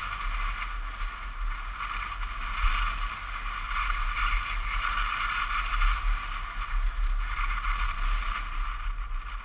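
Mountainboard wheels rolling steadily downhill, a continuous rumble with a hiss over it.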